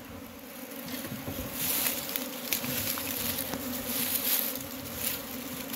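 Honeybees buzzing steadily in a dense hum as their colony's combs are cut out of the nest, with occasional brief rustling.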